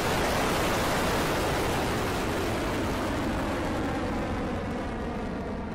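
Rocket Lab Electron rocket's nine Rutherford first-stage engines firing just after liftoff: a steady rushing noise that grows fainter and duller toward the end as the rocket climbs away.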